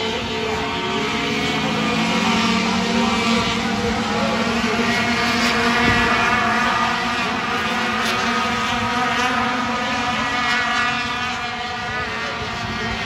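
A pack of racing sport trucks, many engines running hard at once in a continuous overlapping drone. It grows louder for a few seconds in the first half, then eases slightly.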